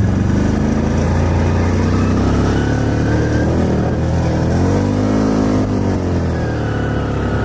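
Small off-road vehicle's engine running while ridden through snow, heard from the seat. Its pitch rises and falls as the throttle is opened and eased, most clearly about five seconds in.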